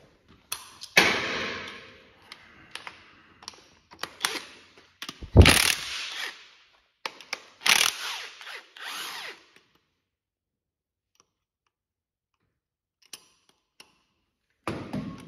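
Socket wrench and metal tool noise on the main bearing cap bolts of a Chrysler 318 V8 block on an engine stand. Several short bursts of metal-on-metal clatter come in the first ten seconds, the loudest a heavy clunk about five seconds in, then it is mostly quiet.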